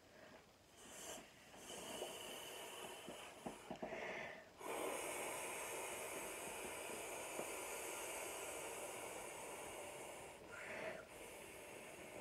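A person blowing up a plastic inflatable by mouth through its valve: three long, steady blows of rushing breath, each broken off by a quick gasp for air, the first about four seconds in and the second near the end.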